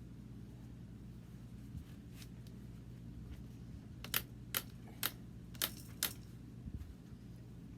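Five sharp plastic clicks about two a second, a little over halfway through, as the stroller's canopy or frame parts are worked into place, over a low steady hum.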